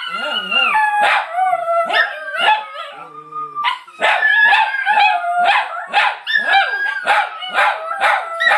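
A group of small dogs, chihuahuas and Alaskan Klee Kai, howling together: long wavering howls over a steady run of quick yips and barks, two or three a second, with a brief lull about three seconds in.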